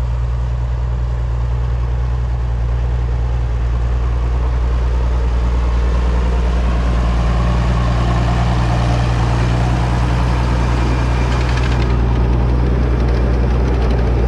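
Farm tractor engine running steadily and loud while it pulls a Hesston 565A round baler baling hay.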